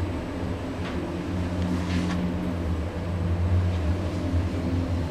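Elevator car travelling: a steady low hum from the lift drive and car, with a couple of faint clicks about one and two seconds in.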